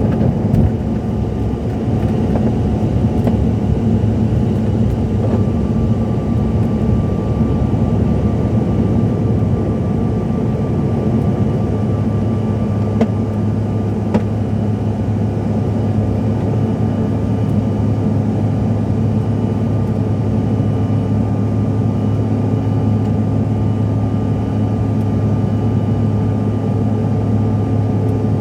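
Steady cabin drone of a CRJ-700's rear-mounted turbofan engines, heard from inside the passenger cabin. A thin steady whine joins about five seconds in, with two faint clicks near the middle.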